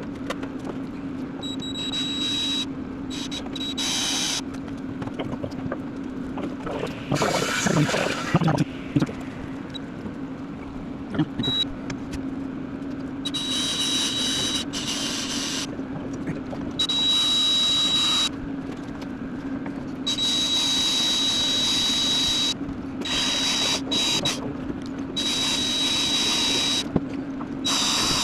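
An electric hand tool running in repeated trigger bursts of one to three seconds, each with a steady high whine, over a constant low hum.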